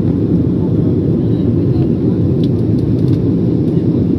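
Steady low cabin noise of an Embraer E190 airliner in flight, from its CF34 turbofan engines and the air rushing past the fuselage.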